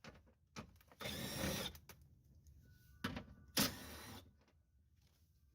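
Ratchet with a 10mm socket turning out window-regulator hold-down bolts, in two short bursts of rapid ratcheting, one about a second in and one near four seconds, with a couple of sharp clicks of the tool on metal between them.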